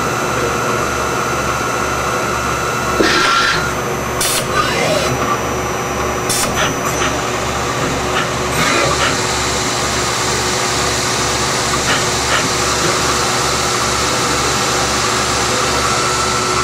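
Steady whir of a Tsugami B018B-III Swiss-type CNC lathe running under power, with a high whine that fades about three seconds in and returns near the end. A few sharp clicks and knocks come through over the first half.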